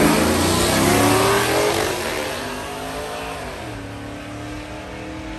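Racing vehicle's engine at full throttle, revving up in pitch as it pulls away, growing steadily fainter with distance.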